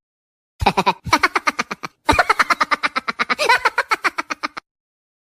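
Laughing sound effect: a rapid, choppy laugh of about ten quick 'ha' pulses a second, in three runs, the last and longest lasting about two and a half seconds.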